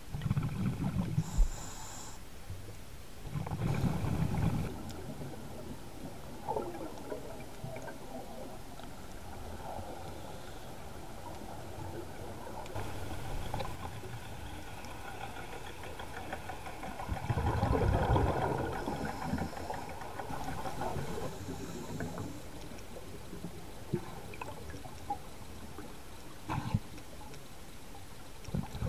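Scuba diver's exhaled bubbles rumbling out of the regulator underwater, in surges of a second or two: at the start, around four seconds in, a longer one around eighteen seconds and again at the very end, with faint bubbling and hiss between.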